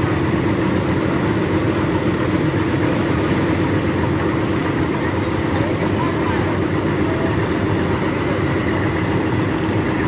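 Diesel engine of a Someca combine harvester running steadily with a deep, even rumble.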